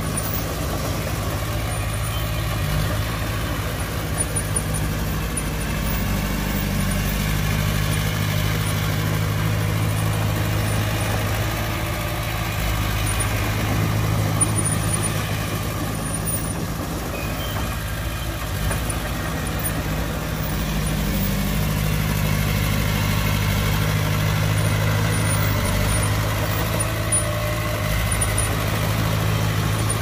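Heavy diesel engines of a bulldozer and dump trucks running steadily at an even pitch, with a few small knocks.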